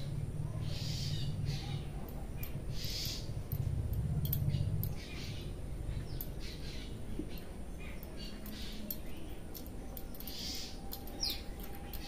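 Hair being rubbed and tugged between the fingers in a hair-cracking head massage: repeated rustling strokes about every second or two, with fine crackles. A low rumble runs under the first five seconds.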